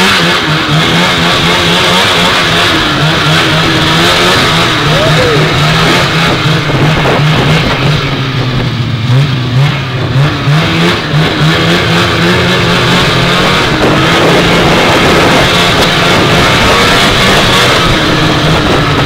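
Vintage two-stroke snowmobile engine running under way at speed, the throttle easing off and back on a few times around the middle.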